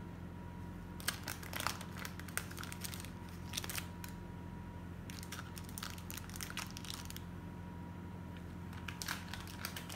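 A crinkly wrapping material, such as foil or a paper wrapper, being crumpled and torn by hand in several short bouts, over a faint steady hum.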